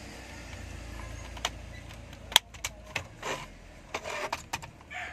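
Plastic clicks and knocks of a car dashboard's AC/heater switch and its wiring connector being fitted and pushed into the panel, the sharpest snap about two and a half seconds in, over a low rumble in the first half.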